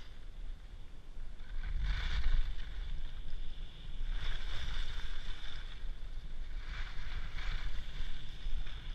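Wind buffeting the microphone of a camera carried down a ski slope, a steady low rumble, with the hiss of edges scraping across packed snow swelling three times, about two to three seconds apart, as the rider turns.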